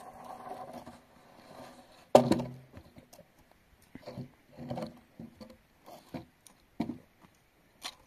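A long wooden beam dragged scraping over dry, stony ground, then dropped with a loud thud about two seconds in, followed by scattered footsteps and small knocks on the gravel.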